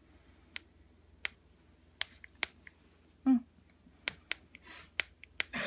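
Long fingernails tapping on a tablet's glass touchscreen: about eight sharp, separate clicks at uneven spacing, as a number is keyed into an on-screen keypad.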